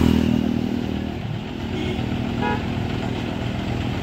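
John Deere tractor's diesel engine running at low speed as it drives down the loading ramps off a double-deck carrier truck. A motorcycle passes close in the first second, and a brief horn toot sounds about two and a half seconds in.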